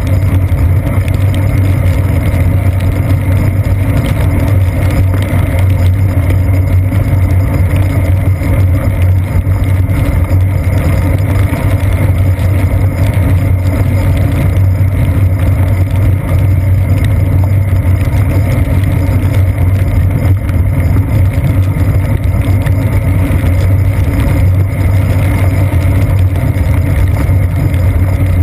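Steady, loud, muffled rumble of a bicycle rolling on wet pavement, picked up by a camera mounted on the seat post: tyre and road vibration carried through the frame.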